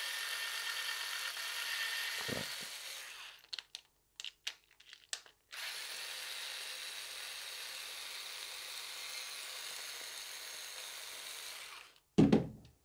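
Small cordless electric screwdriver running in two stretches as it backs out two screws: about three seconds, then about six seconds. A few light clicks fall between the runs, and there is a short thump near the end.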